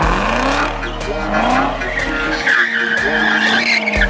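Chevrolet C7 Corvette's V8 revving while it spins donuts, its rear tyres squealing continuously. The engine note climbs twice in the first couple of seconds, then holds steady under a loud tyre squeal.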